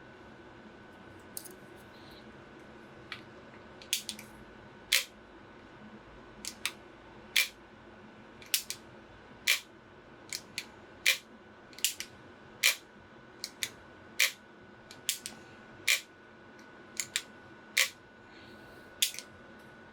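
Trigger mechanism of a VFC gas blowback AR airsoft rifle fitted with an all-steel two-stage trigger kit, clicking sharply as the trigger is worked over and over. There is about one click a second, several of them in quick pairs.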